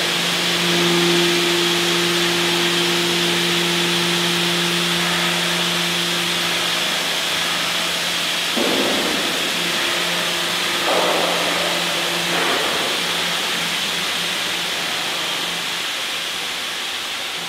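Steady hiss of steam in a locomotive depot, with a steady machine hum underneath that fades partway through, and a few short louder noises in the middle.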